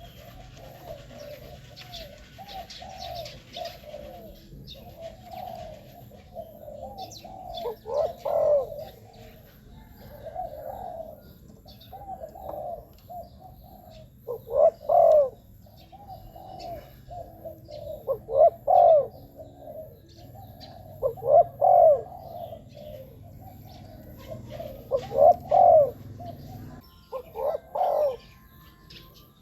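Spotted doves cooing: a soft, continuous run of coos with louder coo phrases every three to four seconds, as used in a decoy call to lure wild doves. Faint chirps of small birds sound now and then.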